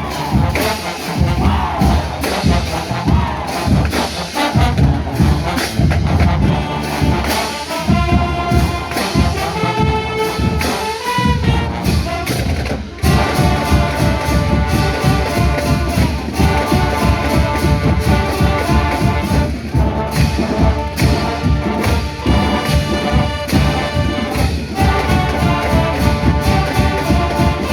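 A college marching band playing a brass tune of trumpets and trombones over a steady beat of drums and cymbals.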